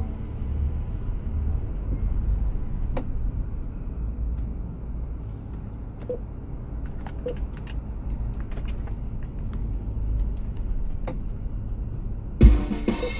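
Low rumble of a car's engine and tyres heard inside the cabin while it creeps along in slow traffic, with a faint steady high whine and a few faint clicks. Near the end, music with drums starts suddenly and loudly.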